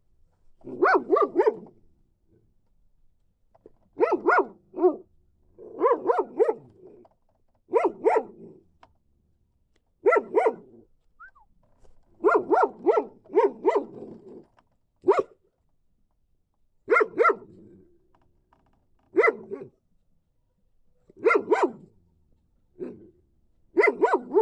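A dog barking in repeated bouts of two to four quick barks, roughly every one to two seconds, with short silences between.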